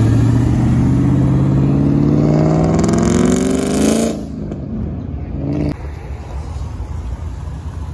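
Car engine accelerating hard, its pitch climbing steadily for about four seconds before cutting off abruptly. A quieter engine running steadily follows.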